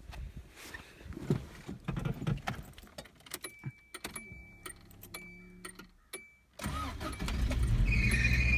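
Key and switch clicks with a faint thin beep, then the 1992 Subaru Loyale's 1.8-litre flat-four ('pancake') engine cranks and catches about six and a half seconds in and runs. A high pulsing squeal comes in over the running engine near the end: the serpentine belt, which needs fixing.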